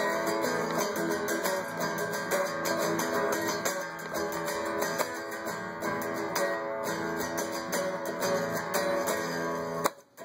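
Guitar strummed in steady chords as an instrumental break in a song, stopping briefly near the end.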